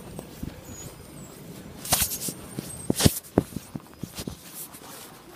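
Footsteps in snow, an uneven run of steps, with two louder knocks about two and three seconds in.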